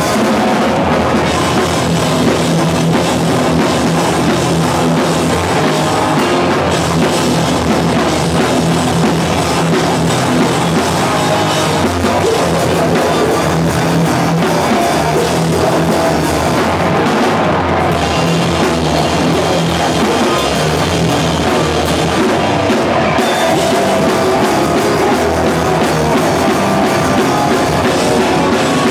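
Hardcore band playing live, with electric guitar and a drum kit, loud and unbroken.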